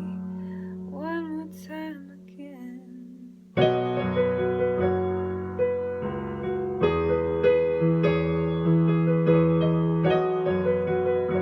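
Song ending: a last sung note, its pitch wavering, over a fading held chord, then about three and a half seconds in a piano comes in loudly, playing struck chords and a melody.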